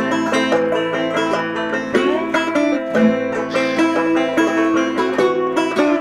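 Background music of quickly plucked string instruments, note after note at a steady level.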